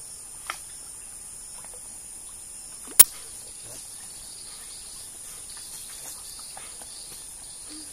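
Steady, high-pitched chorus of insects in the surrounding vegetation, with one sharp click about half a second in and a much louder sharp click about three seconds in.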